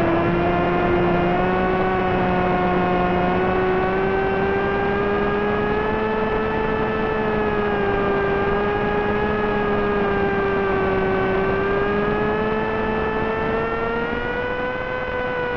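Brushless electric motor (Multistar Elite 2204) spinning a 6x3 propeller on a flying wing in cruise flight, a steady whine whose pitch drifts slowly up and down, over a constant hiss.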